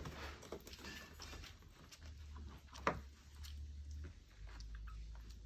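Faint rustling and scrabbling of two-week-old Nova Scotia Duck Tolling Retriever puppies crawling over one another on a blanket, with scattered small clicks and one sharp knock about three seconds in.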